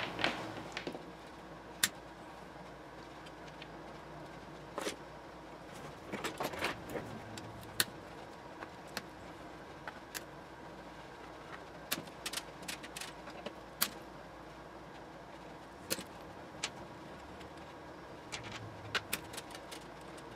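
A screwdriver backs the cover screws out of a metal power-supply chassis. Scattered sharp metallic clicks and scrapes come singly and in short clusters as the screws come loose and are set down on a wooden bench.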